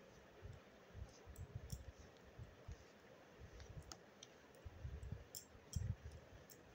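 Faint, irregular small clicks and soft low bumps from hands working over a cloth while drawing on it.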